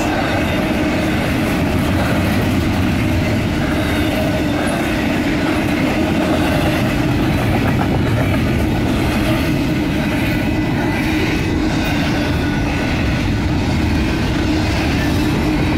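Union Pacific freight cars rolling past a grade crossing: a loud, steady rumble and rattle of steel wheels on the rails.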